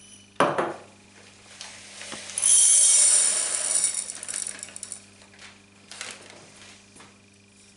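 A glass beaker set down on the table with a knock, then, from about two seconds in, a hissing rattle of small glass beads poured into it that trails off about five seconds in.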